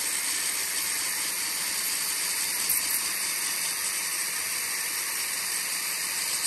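Narrow belt sander (power file) grinding down mild-steel spot welds on a cast-iron cylinder barrel fin: a steady, even abrasive hiss of belt on metal.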